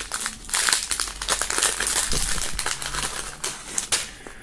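Thin clear plastic bag crinkling and crackling as it is opened by hand, a dense run of small crackles that thins out near the end.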